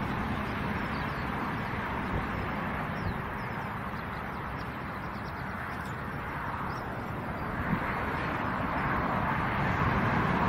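Boeing 787 Dreamliner's jet engines running at taxi power, a steady rushing hum that grows louder near the end as the aircraft comes closer. Faint bird chirps over it.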